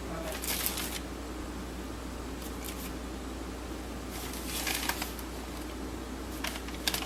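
Four brief scraping handling noises over a steady low hum.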